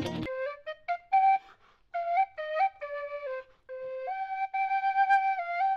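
Background music: a solo flute melody of short separate notes, with one long held note near the end. A strummed guitar backing stops just after the start.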